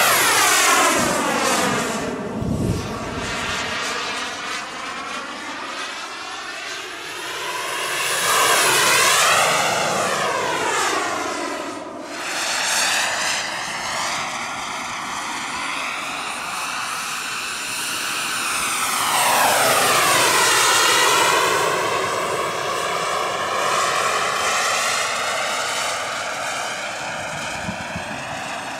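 EnJet E160 model jet turbine running in flight on a 2.2 m RC J-10B, passing by three times: each pass swells and fades, its pitch dropping as the jet goes past. A thin high turbine whine sits above the jet noise.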